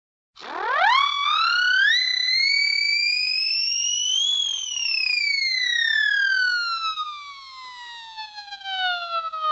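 Cartoon-style slipping sound effect: a single whistle-like tone sweeps quickly upward in a few steps, climbs slowly to a high peak about four seconds in, then slides steadily down in pitch for the rest.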